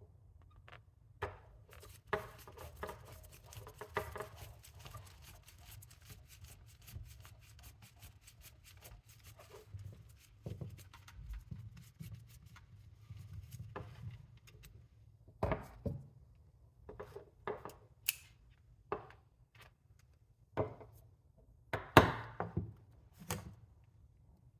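Hand tools and small metal parts handled while disassembling a Honda CBR600RR front brake master cylinder: a run of quick small clicks and rattles, then scattered knocks and clatters, the loudest about three-quarters of the way through.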